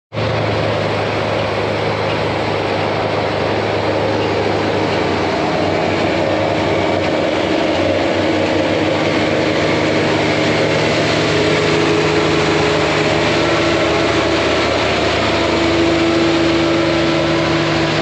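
Tractor engine running steadily, with a mechanical whine that comes in past the midpoint and rises slightly in pitch near the end.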